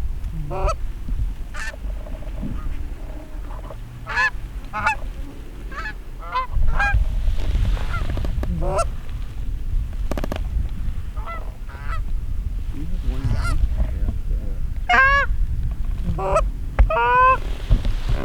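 Geese honking and clucking: many short calls, some in quick runs of several, over a low rumble that grows louder about six seconds in.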